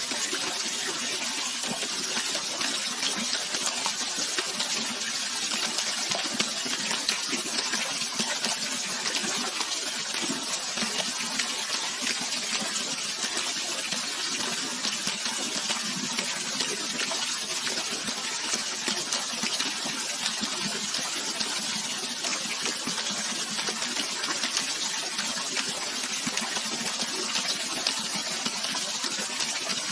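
Running water rushing steadily: a continuous, even hiss with little deep rumble.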